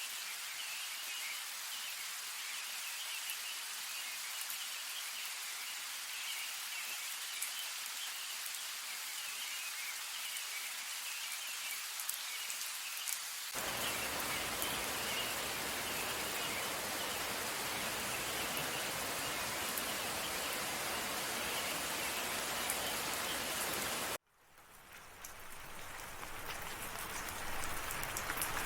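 Steady rain falling, an even hiss of drops. About halfway through it changes suddenly to heavier, fuller rain. Near the end the rain cuts out abruptly for a moment, then fades back in.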